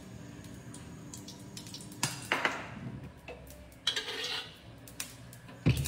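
Metal spatula scraping and clinking against a wok as oil is spread around the pan, a few separate strokes with a heavier knock near the end.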